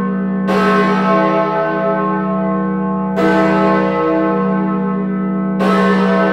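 Great George, the great bell of Bristol, swinging and striking three times about two and a half seconds apart. Each stroke rings on with many overtones over a loud, steady hum that carries through from stroke to stroke.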